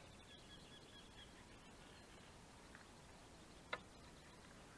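Near silence, with a faint bird singing in thin whistled tones for about the first second and a single short click about three and a half seconds in.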